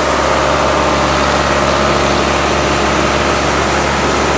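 Blueberry harvesting machine running steadily in the field: a constant engine and machinery drone with a thin, steady high whine on top.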